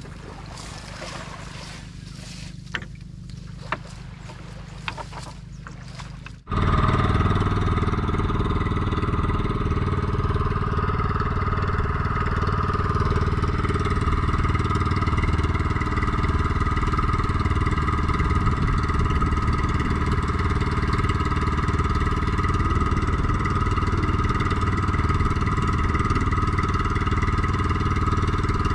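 A few light clicks and rattles of a fishing net with its floats and weights being handled in a wooden outrigger boat. About six seconds in, there is a sudden switch to the boat's small engine running steadily and loudly at constant speed as the boat moves along.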